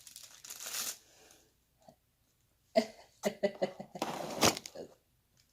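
Plastic candy and toy packaging crinkling and tearing in short bursts, with a short throaty cough-like sound about three seconds in.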